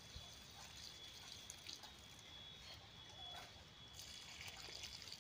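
Near silence: faint background noise with a thin, steady high tone.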